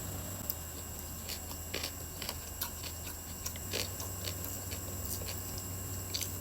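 Close-miked chewing of food: irregular short clicks and smacks from the mouth, a few each second.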